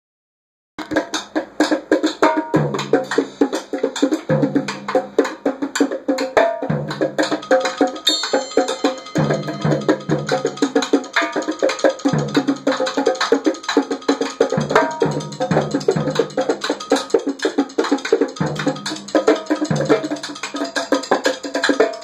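Percussion jam on a trap drum kit and Haitian goat-skin bongos with a gourdaphone: fast, dense drum and wood-like hits, and a low pitched note that recurs every second or two. It starts abruptly about a second in.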